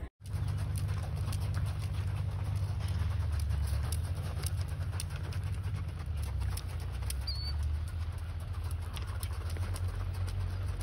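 Wind buffeting the phone's microphone: a steady low rumble, with faint ticks above it.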